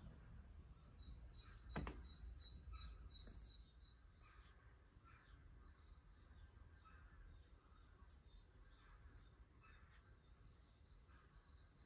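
Small birds chirping faintly outside in quick series of high notes. There is a soft click just before two seconds in.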